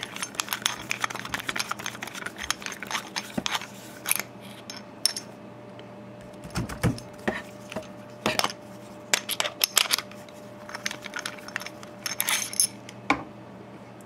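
Hex bit driver turning the hex nut inside a steel padlock body: a run of quick metallic clicks and clinks, thick for the first few seconds and then in scattered groups.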